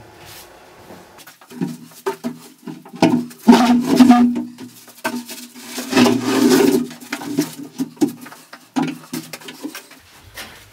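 A plywood-and-OSB cabinet being pushed and slid across the floor into place: wood scraping and knocking, loudest in two long scrapes about three and a half and six seconds in.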